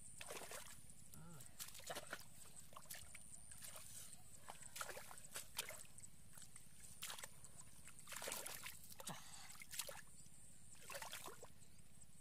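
Hands splashing and squelching in shallow muddy water while groping for fish, in irregular short splashes a second or two apart.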